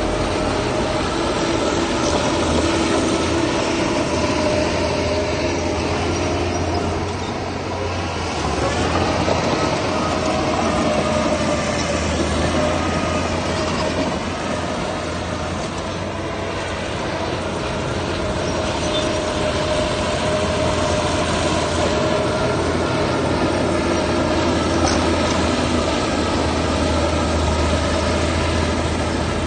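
Heavy diesel earth-moving machinery running steadily, a loud engine rumble with a steady whine above it.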